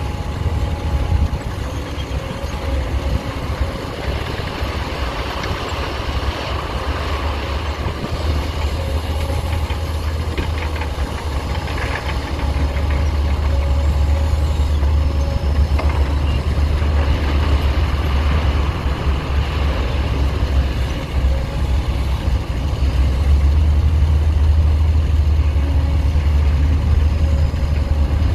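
Heavy diesel engine of earthmoving machinery running with a deep steady rumble, growing louder about halfway through and again near the end.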